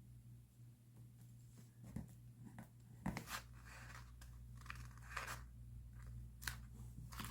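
Faint paper sounds of diary decorating: scattered short scratchy rustles of paper and sticker sheets being handled, cut and peeled, with a few sharp clicks. A low steady hum runs underneath.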